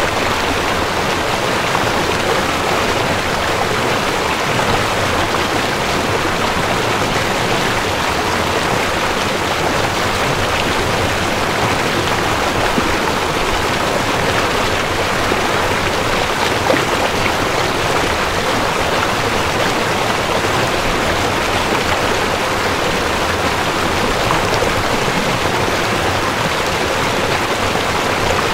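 River water flowing: a steady, even rush.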